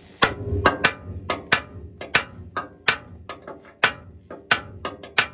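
A hammer striking a worn tie rod end on a 1981 Ford F-150's steering linkage: about fifteen sharp metal blows, roughly three a second, meant to knock the seized tapered stud out of its seat.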